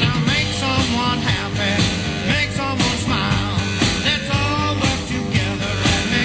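Rock song with a sung vocal in Spanish over a full band with a steady beat.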